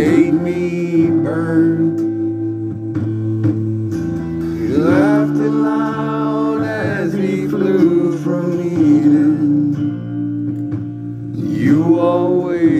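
Music: a guitar-backed song, with long sung notes from a voice in the middle and near the end.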